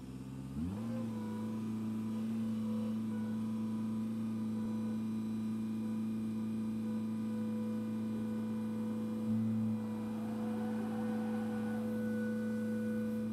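Caterpillar 320 hydraulic excavator's diesel engine rising in pitch about half a second in, then running steadily at working speed, with a brief swell in loudness a little past the middle.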